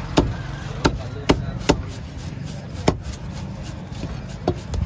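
Heavy knife chopping fish on a wooden chopping block: about six sharp knocks, four close together in the first two seconds, then two more spaced further apart.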